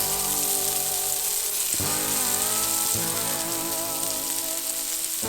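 Background music with held notes that change every second or so, over the steady hiss of pork slider patties sizzling in a frying pan.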